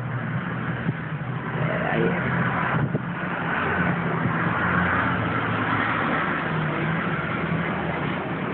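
Blizzard wind roaring steadily across a phone's microphone, with a low engine-like hum running underneath.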